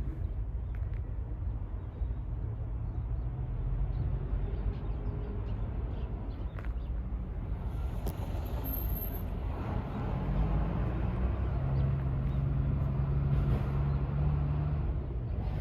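Engine running steadily with a low hum, growing louder about ten seconds in.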